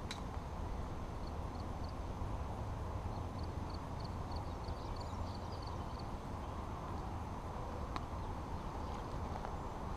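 Steady low outdoor rumble of wind on the microphone, with faint high bird chirps scattered through the middle and a single sharp click about eight seconds in.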